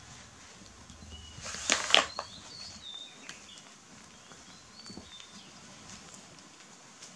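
Hard plastic clatter about two seconds in, as a baby monkey grabs and handles a plastic toy net. It is followed by a scatter of short, faint, high chirps.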